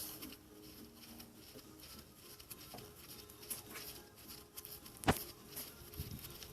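Light clicks and scrapes of hand tools and parts being handled, with one sharp click about five seconds in.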